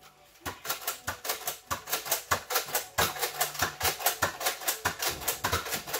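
Nerf blasters in a shootout: a fast, fairly even run of sharp clicks and taps, about five a second, starting half a second in.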